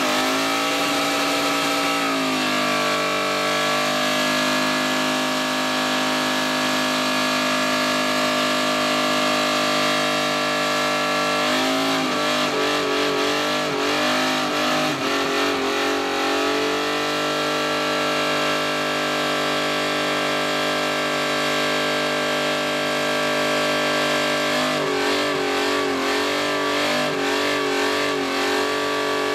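Fox-body Ford Mustang's engine held at high revs through a burnout, its rear tyres spinning in thick smoke. The pitch climbs about two seconds in and then holds steady, with stretches of wavering, bouncing revs around the middle and again near the end.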